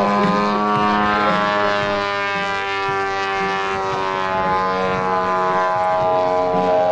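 Engine and propeller of a giant-scale (50%) Yak 54 radio-control aerobatic plane running in flight, a steady buzzing note whose pitch sags slightly and rises again.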